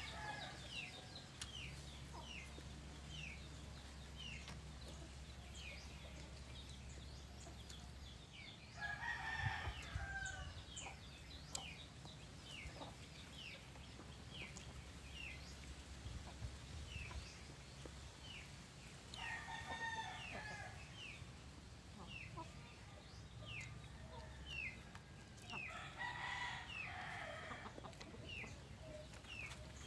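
A rooster crowing three times, several seconds apart. Short, high, falling chirps from a small bird repeat about once a second throughout.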